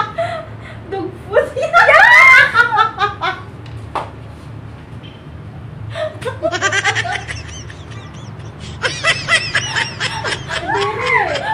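People laughing hard in several bursts. The loudest comes about two seconds in, with more about six seconds in and again near the end.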